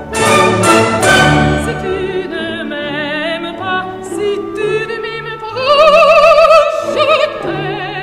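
Orchestral music with an operatic voice singing with strong vibrato, loudest on a long held high note about six seconds in.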